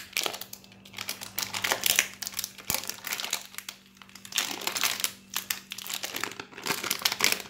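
Plastic Oreo cookie wrapper crinkling in irregular bursts as it is peeled down and off a frozen ice pop by hand.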